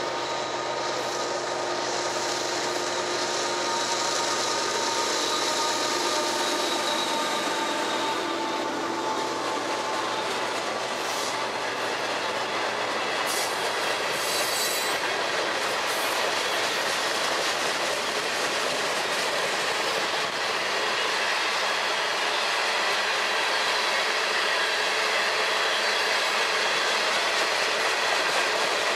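Union Pacific diesel-hauled freight train passing close by: the locomotives go by in the first several seconds, then the cars roll past with a steady rush of steel wheels on rail and clickety-clack over the rail joints.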